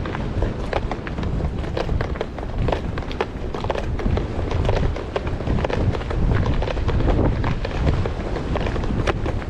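Strong wind buffeting the microphone: a steady low rumble with many irregular crackling pops throughout.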